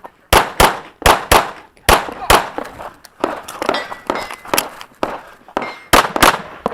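9mm Smith & Wesson M&P9L pistol firing rapid pairs of shots, each pair about a third of a second apart, with a few lighter shots in the middle of the string.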